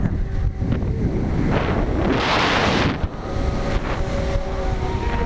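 Wind buffeting the microphone of a camera riding a tall swing ride as it swings around at speed, with a louder, hissier rush of wind a little past two seconds in.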